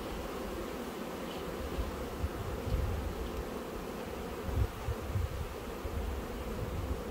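Honeybees buzzing steadily in a continuous hum around an opened hive as its frames are worked. Irregular low rumbles underneath, the strongest a little past halfway.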